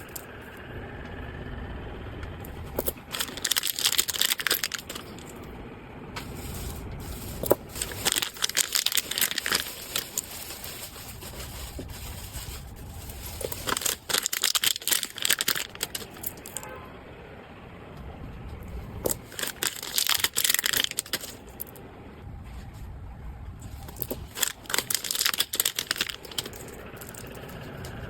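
Packaging being handled and opened: crinkling, crackling and tearing in irregular bursts every few seconds.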